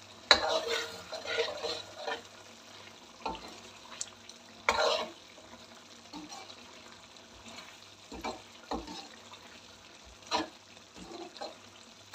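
Metal ladle stirring chicken curry in a metal karahi, with irregular scrapes and knocks against the pan: a long scraping stir at the start, then a few separate knocks and scrapes.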